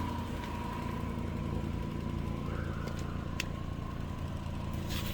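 Volkswagen Bora 2.5's inline five-cylinder engine idling steadily and evenly on its new ignition coils, running without misfires. A thin steady high tone runs above it, with a sharp tick about three and a half seconds in.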